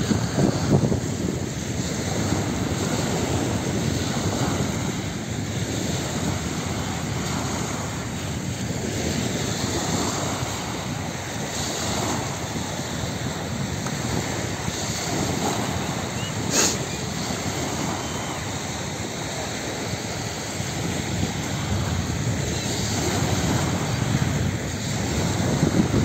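Small Baltic Sea waves breaking and washing up a sandy beach, with wind buffeting the microphone. A brief sharp click about two-thirds of the way through.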